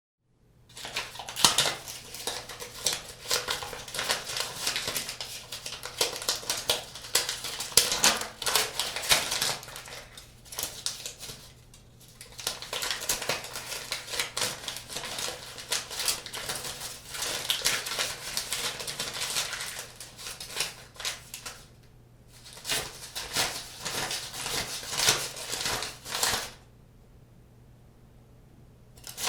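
Money being counted by hand: a fast, irregular run of crisp flicks and rustles, broken by short pauses about a third and two-thirds of the way in and a longer pause near the end.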